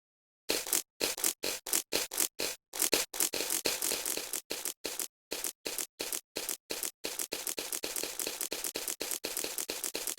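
Slime being squeezed and poked in a fast run of short crackly squishes, each cut off sharply by dead silence, packing closer together after about seven seconds.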